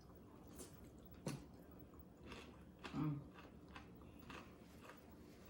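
Faint chewing of nachos, with scattered small crunches and mouth clicks about every half second. A brief low hum of a voice about three seconds in.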